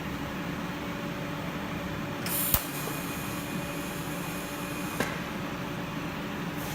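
Gas welding torch flame hissing steadily while an aluminum tack weld is made. There is a brief louder hiss ending in a sharp click about two and a half seconds in, and another click about five seconds in.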